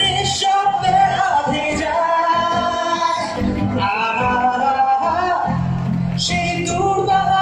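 A man singing a Bengali song, holding long wavering notes, accompanied by an acoustic guitar, both amplified live through a PA.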